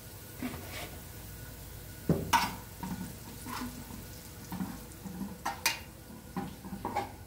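Kitchen utensils scraping and clinking against cookware in irregular strokes, with a sharp knock about two seconds in.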